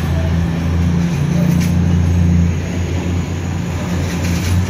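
Diesel multiple unit running past close by, its underfloor engines giving a steady low drone, with wheels clacking over rail joints about one and a half seconds in and again near the end.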